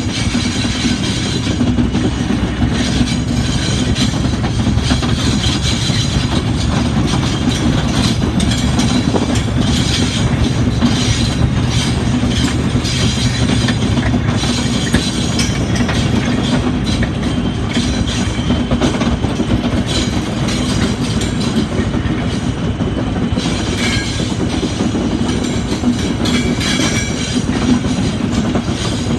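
Class 73 electro-diesel locomotive running on its diesel engine and working uphill, heard close up from its own cab window. A steady, loud engine drone mixes with wheel and rail clatter.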